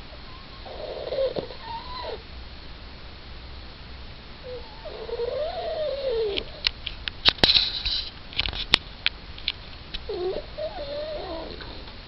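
Yorkshire terrier whining in its sleep: three drawn-out, wavering whines, with a cluster of sharp clicks between the second and third.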